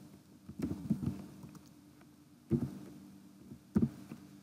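Computer keyboard typing: a handful of keystrokes in uneven bursts over a faint steady hum.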